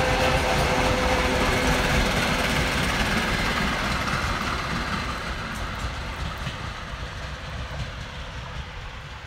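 Electric commuter train running past along the track and moving away, its steady noise fading out gradually.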